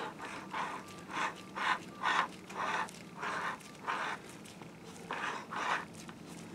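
Gloved hand rubbing against a digital microscope's camera head while working its focus, a soft repeated swish about twice a second.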